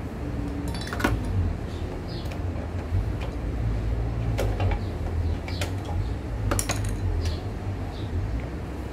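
Light metallic clicks and knocks as carburettor parts on an Efco lawn mower engine are handled and fitted by hand, a few at a time, over a steady low rumble.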